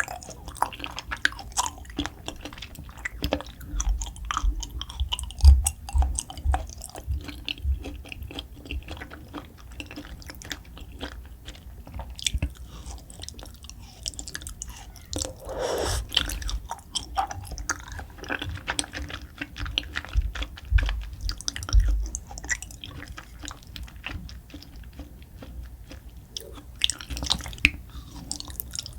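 Close-miked chewing of beef spine bone marrow (beef spinal cord): a steady run of small mouth clicks and smacks, with clusters of low thuds a few seconds in and again around two-thirds of the way through.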